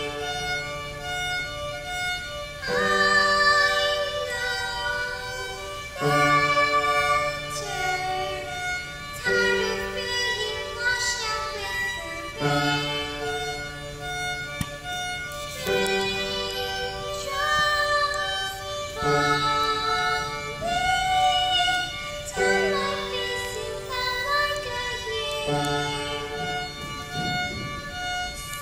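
Live violin playing a slow melody over upright piano chords that change about every three seconds.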